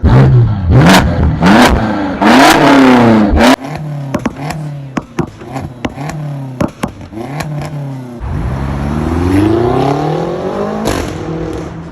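BMW X6 M twin-turbo V8 with catless downpipes, revved in several quick blips in neutral, then sharp pops and crackles from the exhaust. Near the end comes one longer rev that climbs and falls away.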